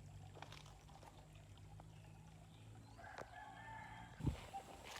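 Faint rooster crowing in the distance about three seconds in, one drawn-out call over a low steady outdoor hum, followed by a short low thump.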